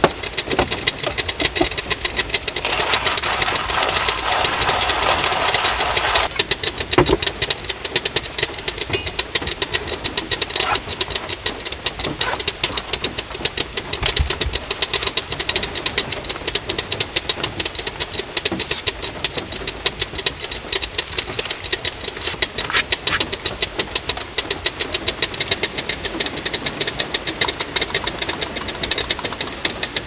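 Heavy rain drumming steadily on a car roof, a dense, even patter. About three seconds in, a louder rustling burst lasts about three seconds.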